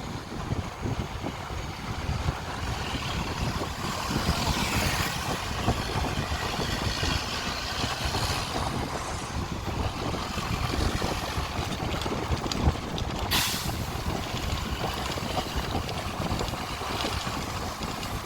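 Charter coach with Irizar Century bodywork, its diesel engine running steadily. A short, sharp hiss of air from the air brakes comes about two-thirds of the way through.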